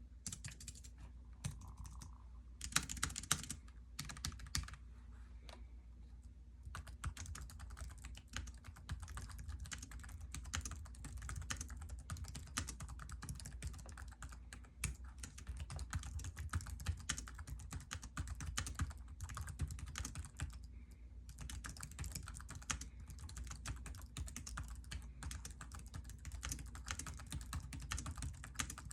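Typing on a ThinkPad laptop-style keyboard: scattered keystrokes and short bursts at first, then about seven seconds in, continuous fast typing with many key clicks a second. A steady low hum sits underneath.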